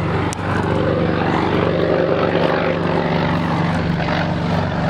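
A World War II warbird's radial piston engine and propeller running at takeoff power as the aircraft lifts off and climbs. It makes a loud, steady drone.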